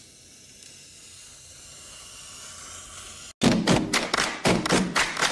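Utility knife blade drawn along a straightedge through foam board: a faint, steady, scratchy hiss that grows slowly louder. It cuts off about three seconds in, and loud music with a strong, even beat starts.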